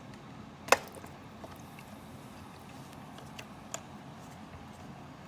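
Small clicks and taps of a lawn mower carburetor's float bowl and parts being handled as the bowl is taken off, with one sharper click under a second in and a few faint ticks later.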